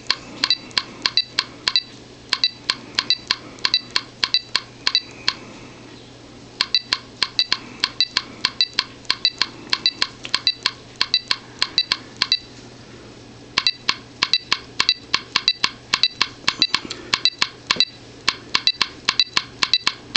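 Teletype 7100 truck GPS unit beeping once per screen tap, short pitched beeps about three a second, with two brief pauses, as the trailer-length setting is stepped up one number at a time.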